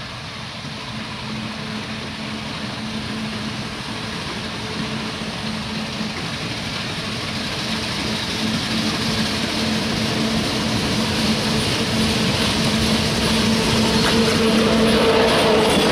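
Diesel locomotive hauling a train of oil tank wagons approaching, its engine running with a steady hum and the engine and wheel noise growing steadily louder as it draws near.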